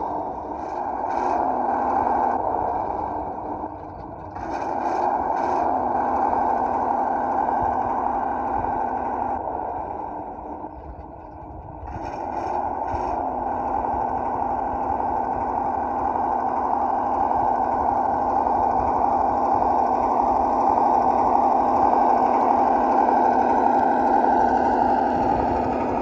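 Simulated V8 truck engine sound from the sound module of a 1:12 scale RC ZIL-131 truck as it drives. The note swells and fades, dropping away twice, then rises steadily to its loudest near the end.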